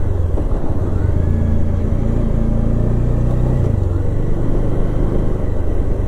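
Motorcycle engine running steadily as the bike rides along at low speed.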